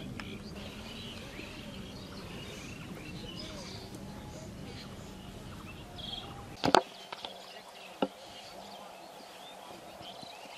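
Outdoor field ambience: small birds chirping over a low background hum. About two-thirds of the way through comes one sharp, loud knock, then a lighter one a second later, and the low hum drops away at the first.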